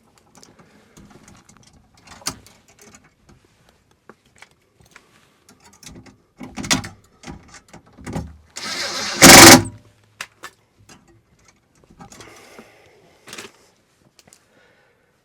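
Hand work on electrical wiring and tools: scattered clicks and knocks, then a loud burst of noise lasting about a second, about nine seconds in.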